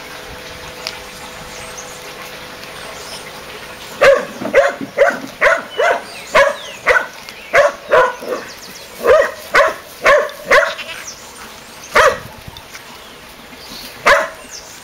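A dog barking in a quick run of short, high-pitched barks, about two a second, starting about four seconds in; after a pause, two single barks near the end.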